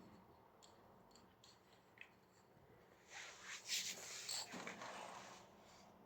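Quiet handling of a metal door closer, with a few faint clicks, then a rustling, rubbing sound for about two seconds, starting about three seconds in.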